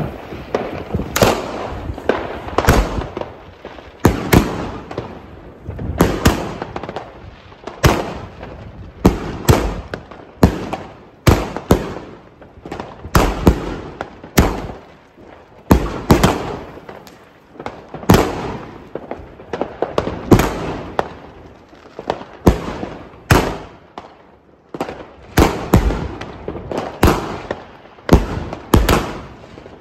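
Funke Gigant 38 mm firework battery firing shot after shot, a launch every second or so and sometimes two or three in quick succession, each sending up a comet with white strobe stars.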